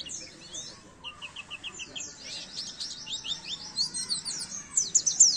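White-eye (pleci) singing a fast, high twittering song of quick chirps, with a short run of evenly spaced notes about a second in, growing louder near the end.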